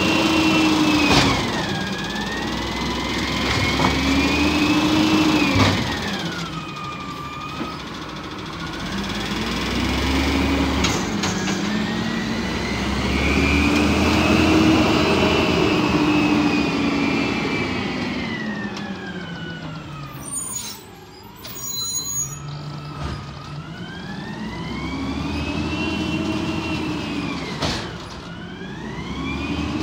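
Peterbilt 320 garbage truck with an Amrep automated side-loader body, its engine revving up and down over and over while the hydraulic arm lifts and dumps curbside carts. The whine rises and falls in pitch every few seconds, with a few sharp knocks and clanks from the arm and carts.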